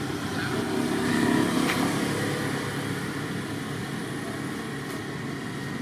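A steady low motor hum, like an engine running, that swells a little about a second in.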